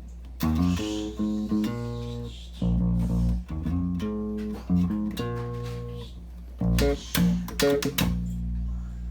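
Electric bass guitar played through a 1950s–60s tube compressor: a run of plucked notes and short phrases with brief gaps. A steady low hum sits underneath between the notes.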